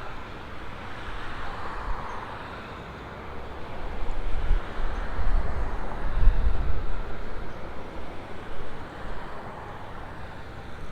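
Busy city-street traffic going by, a steady wash of road noise with a louder low rumble between about four and seven seconds in.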